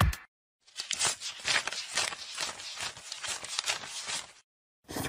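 A stack of paper banknotes riffled through by hand, making a quick, irregular run of papery flicks and rustles that stops shortly before the end.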